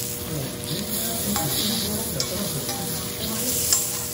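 Wagyu steak cubes sizzling steadily on a hot steel teppanyaki griddle, with a metal spatula scraping and tapping on the plate; a sharp clink of metal on steel near the end.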